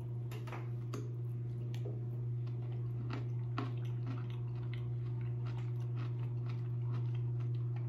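A person biting into and chewing a pickle topped with chicken salad: irregular small crunches and clicks of chewing over a steady low hum.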